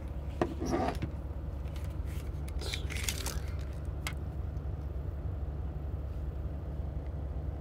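A few scrapes and clicks from a small LED flashlight being handled, over a steady low hum.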